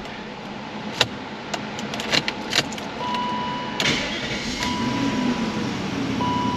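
1994 BMW 530i's 3.0-litre V8 idling as its revs settle back down after a blip of throttle, now running more smoothly with an intake vacuum leak temporarily sealed. A few sharp clicks sound in the first three seconds, and a thin steady tone comes and goes in the second half.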